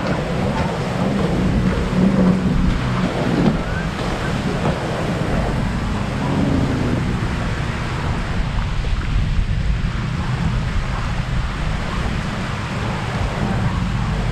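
Strong wind buffeting the microphone, over the steady wash of wind-driven waves on a lake shore.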